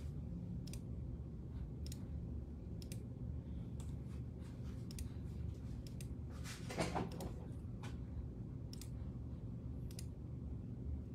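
Scattered single clicks of a computer mouse and keyboard, irregular and roughly a second apart, with a brief louder rustle about seven seconds in, over a steady low hum.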